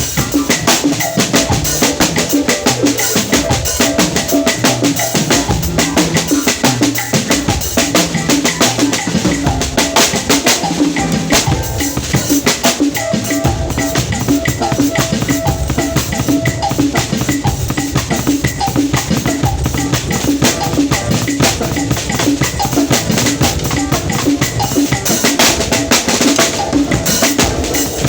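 Drum kit played continuously in a fast, busy pattern of snare and bass drum strokes.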